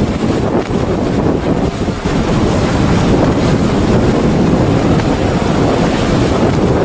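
Hovering search-and-rescue helicopter's rotor and engines running, a loud steady noise with rotor-wash wind.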